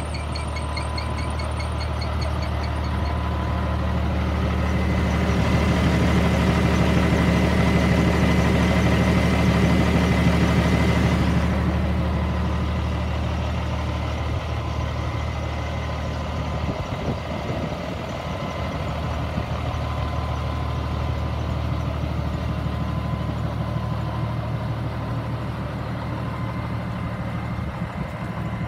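Diesel engine of a Peterbilt semi-truck tractor idling steadily. It swells louder with an added hiss for several seconds, and the hiss cuts off abruptly about twelve seconds in.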